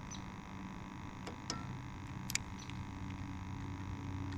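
A steady low hum with a few faint clicks about a second and a half in and again a little after two seconds.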